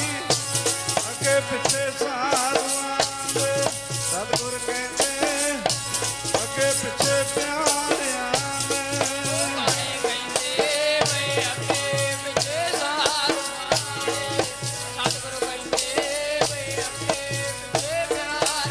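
Sikh devotional refrain sung by a congregation, led over steady held harmonium-like tones, with a fast, continuous jingling rattle-and-drum beat.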